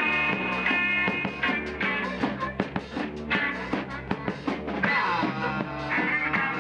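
Rock band playing electric guitar over drums, with a stretch of quick, sharp drum hits in the middle and bent guitar notes near the end.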